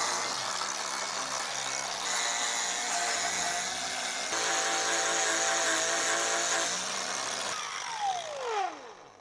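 Cordless power tool motor running steadily while cleaning the differential's gasket surface, its pitch shifting a little a couple of times, then released and spinning down with a falling whine near the end.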